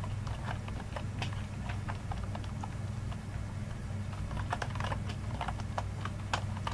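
Typing on a computer keyboard: irregular key clicks, coming faster in the second half, over a steady low hum.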